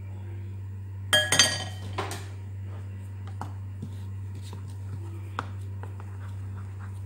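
A metal sieve clatters and clinks as it is set down against a glass bowl about a second in. Then come light scattered taps and scrapes of a spatula stirring flour in a mixing bowl, over a steady low hum.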